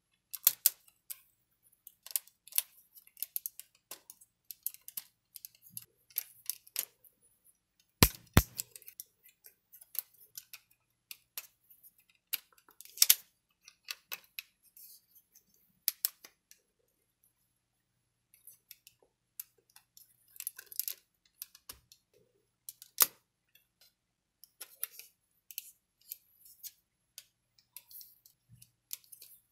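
Plastic and metal parts of a Metal Composite Zeta Plus action figure clicking and snapping as its joints and panels are moved during transformation to Waverider mode. It is an irregular scatter of small sharp clicks, with two loud clicks close together about eight seconds in.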